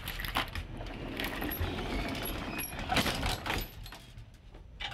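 Manual elevator running: a mechanical rattle with scattered clicks and knocks over a steady low hum, dying down shortly before the end.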